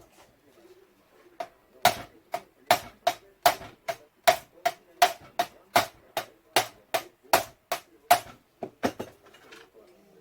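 Rapid, evenly spaced metal taps on the brass of a dented alto saxophone, about two and a half a second, ending with a few lighter ones. This is the sound of the dent in the bell being tapped out during repair.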